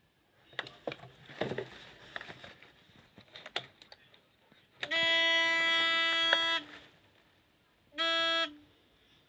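A few clicks and handling sounds from the radio remote's controls, then an electric buzzer horn sounds twice: a steady buzzing tone of nearly two seconds, then a short blast of about half a second, each dipping in pitch as it stops.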